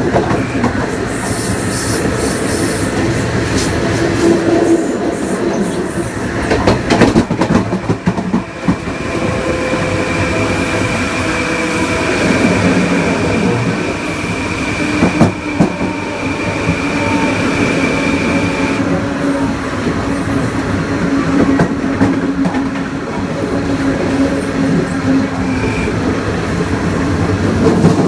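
Long Island Rail Road Kawasaki M9 electric multiple unit running at speed, heard onboard: its Mitsubishi (MELCO) IGBT-VVVF inverter and AC traction motors whine with a steady high tone from about 9 to 19 seconds in. Underneath runs the wheel-on-rail rumble, with clickety-clack over rail joints and a burst of sharp wheel clacks around 7 seconds.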